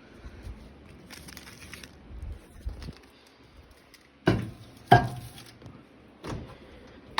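Handling noises as a microwave meal is put into a microwave: a light rustle, then two sharp knocks a little over four seconds in, half a second apart, and a softer knock near the end.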